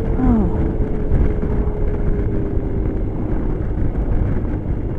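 Suzuki Burgman 650 maxi-scooter's parallel-twin engine running at a steady cruise under the rush of wind on the microphone, with a steady hum that fades out about three seconds in.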